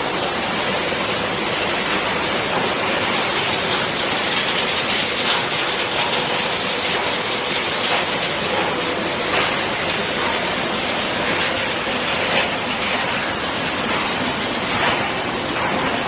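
Refrigerator recycling line's magnetic separation system running with shredded scrap passing through it: a steady, dense mechanical din with scattered small clicks and a faint steady hum.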